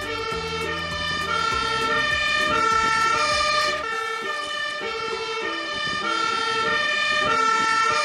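Fire engine's two-tone siren sounding, switching back and forth between held high and low notes.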